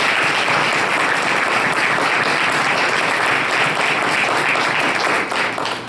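Audience applauding: a steady round of clapping that fades out near the end.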